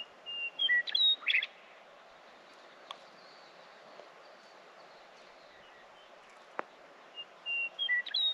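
A songbird singing a short song of clear whistled notes ending in a quick trill. It sings twice, about seven seconds apart, over a steady background hiss.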